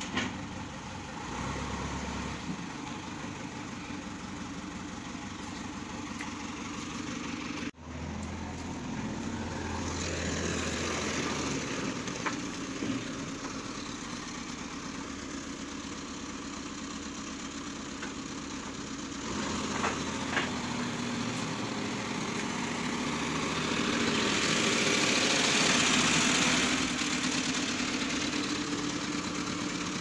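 JCB 4DX backhoe loader's diesel engine running steadily at idle, cutting out briefly about eight seconds in. A louder rushing noise swells over it for a few seconds near the end.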